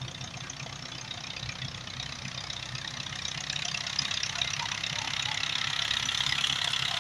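Old Peter diesel engine running with a low, regular beat under a hiss that grows steadily louder.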